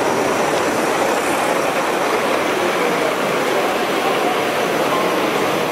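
Gauge 1 model train running on the track, its wheels rolling on the rails in a steady noise over the background of a busy exhibition hall.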